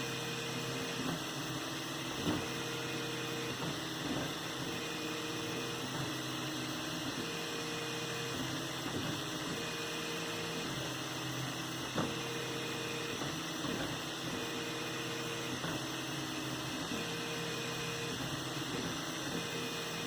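3D printer running a print: its stepper motors whir in short tonal moves that start and stop about every second, over a steady hiss, with a couple of faint clicks.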